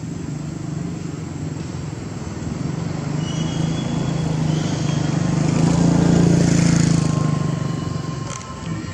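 A motor vehicle's engine running, a steady low hum that grows louder to a peak about six seconds in and then fades away.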